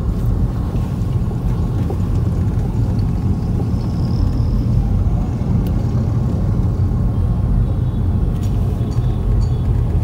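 Steady low rumble of a car's engine and tyres, heard from inside the cabin while driving slowly along a street.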